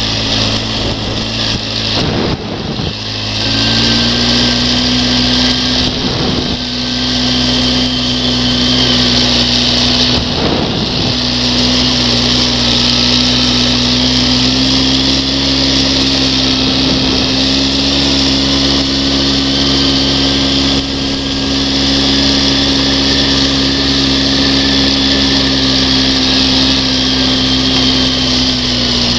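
ATV engine running at a steady cruising speed along a dirt trail, its pitch stepping up slightly a couple of times, under a steady rushing hiss, with a few brief thuds from bumps.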